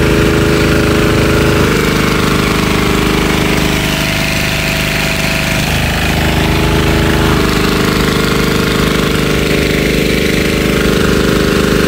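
Recoil-start diesel engine of a high-pressure washer running steadily under load, with the hiss of a foam lance spraying. The engine's pitch shifts slightly a few times.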